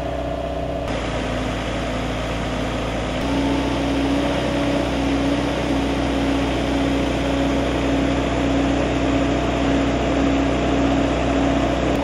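Geoprobe drill rig's engine running steadily. About three seconds in its pitch shifts, and a steady, higher hum holds from then on.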